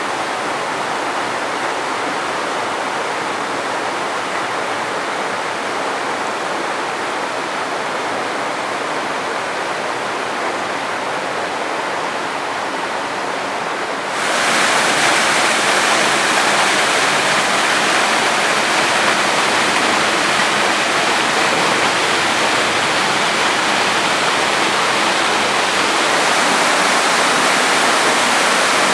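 Kostenets waterfall, a steady rush of falling water. About halfway through it abruptly becomes louder and hissier.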